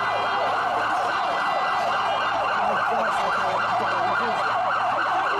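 Several emergency-vehicle sirens sounding at once, their fast rising-and-falling sweeps overlapping into a dense wail that cuts off suddenly at the end.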